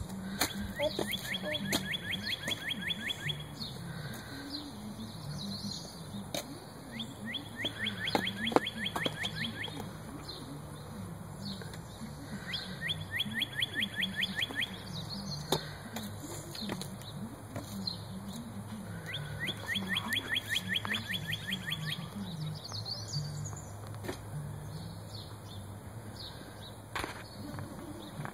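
A songbird singing a trill of quick down-slurred notes, about five a second for some two and a half seconds, repeated four times, with scattered short chirps from other birds over a low steady hum.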